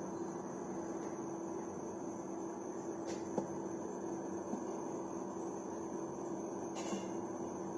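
Induction cooktop running, its cooling fan humming steadily with a faint high whine, and a few light clicks about three seconds in and near the end.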